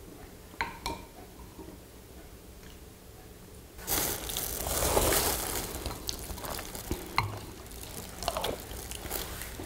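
A wooden spoon clicking in a bowl of taro soup, then about two seconds of slurping as soup is sipped off spoons, followed by a few light clicks of spoons and chopsticks.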